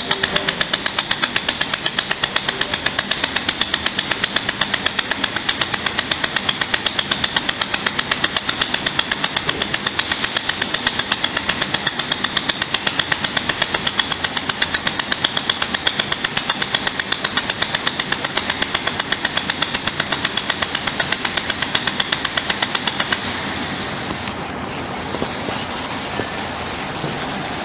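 Pulsed laser welding machine firing, a fast, even train of sharp ticks with a steady high whine. The pulsing stops suddenly near the end, leaving the machine's quieter steady hum.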